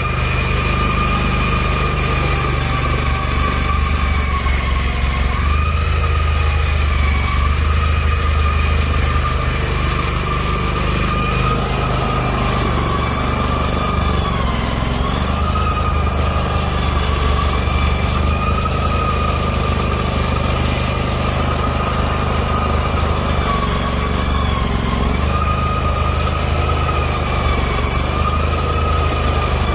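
Kohler CH730 25 hp V-twin engine of an Allis-Chalmers garden tractor running steadily under load while it powers a front-mounted Simplicity snowblower through deep snow. A steady high whine that wavers slightly in pitch sits over the engine's low rumble.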